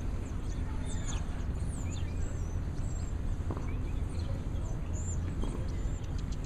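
Small birds chirping with many short up-and-down calls, over a steady low rumble.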